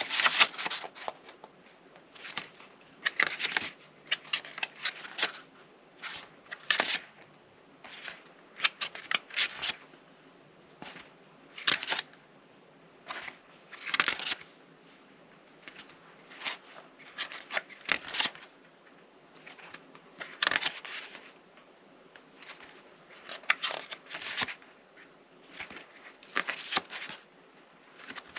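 Paper booklet pages being turned one after another, a short papery flick or rustle every second or two.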